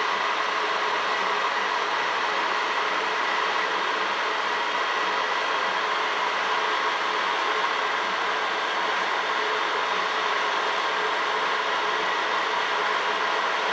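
Crystal QUAD 3D printer running a print job: a steady whirring of its fans and motors, with a faint steady whine.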